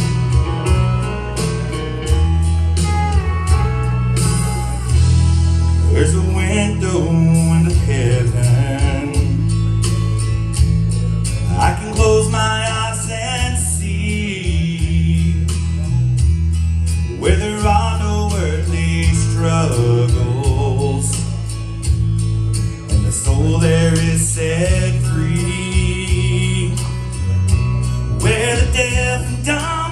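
Church praise team singing a country-gospel song with band accompaniment: voices over guitar, a steady bass line and a regular beat.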